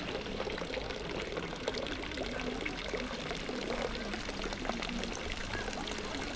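Running water pouring and splashing steadily.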